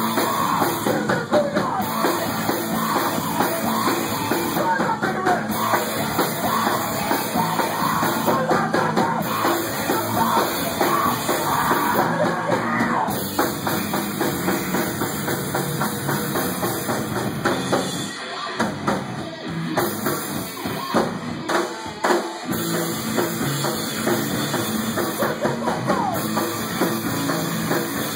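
A rock band playing, with the drum kit prominent.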